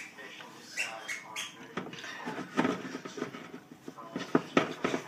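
Spoon clinking and scraping against a glass bowl as thick brownie batter is stirred fast, in a run of irregular knocks a few times a second.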